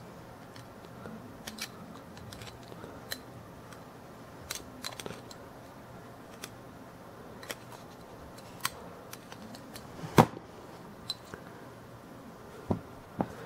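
Scattered small metal clicks and taps of hand tools working on a Ronson lighter while a new wick is fed in. The sharpest click comes about ten seconds in, and two more come near the end.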